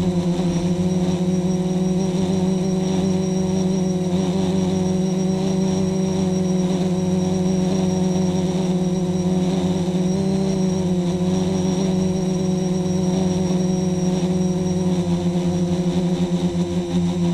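Quadcopter's electric motors and propellers running with a steady hum and whine, picked up by a camera mounted directly on the frame. The pitch wavers briefly about ten seconds in as the throttle changes.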